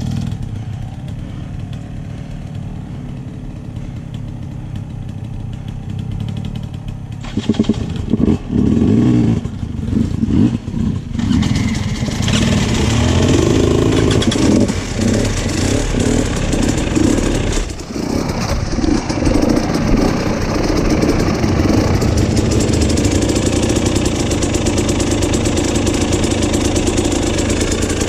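Off-road vehicle engine running at low, steady revs, then revving unevenly in bursts from about seven seconds in, and from about twelve seconds in running hard and loud under load.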